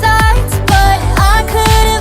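Background pop music with a steady electronic beat, low kick drums about twice a second, under a held melodic line.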